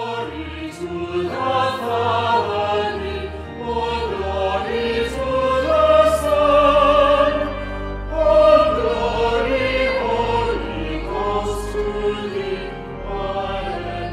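Choral music: a choir singing slow, sustained lines over long, low held notes.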